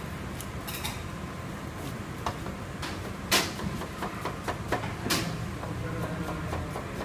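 Chef's knife knocking on a plastic cutting board at uneven intervals while an onion is cut, with two louder knocks near the middle, over a steady low hum.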